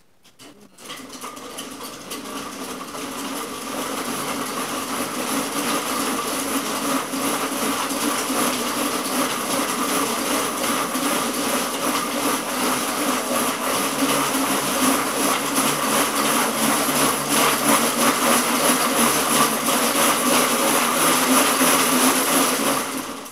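Wooden slat-belt dog treadmill running under a dog, its slats rattling and whirring over the rollers in a dense steady clatter that builds over the first few seconds as the dog speeds up. Near the end the sound drops away quickly as a hand works the treadmill's disk brake and the track slows.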